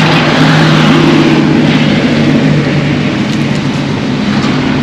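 Motor vehicle engine running close by, a steady low hum that shifts slightly in pitch, over a haze of street traffic noise.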